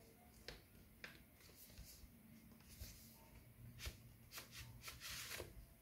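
Near silence: room tone with a few faint clicks and soft rustles, the longest rustle about five seconds in.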